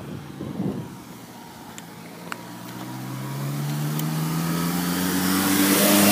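A car engine approaches along the road, rising steadily in pitch and loudness over the second half and loudest near the end.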